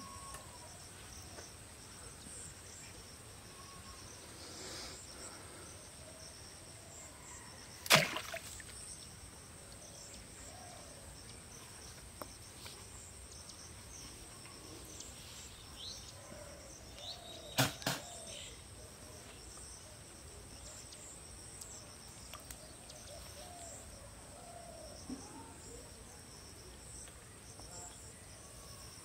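Steady high-pitched chirring of insects, with two sharp snaps cutting through: a single loud one about eight seconds in and a quick double one around eighteen seconds.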